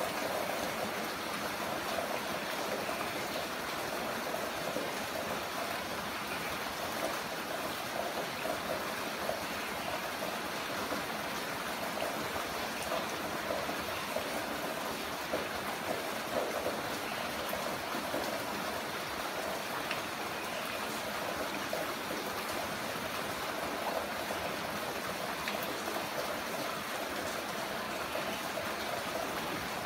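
Heavy rain falling in a steady, even hiss of water, with faint scattered drop ticks.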